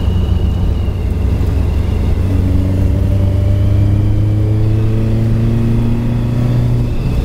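Morris Minor Traveller's engine pulling under acceleration while driving, a steady hum whose pitch rises slowly from about two seconds in.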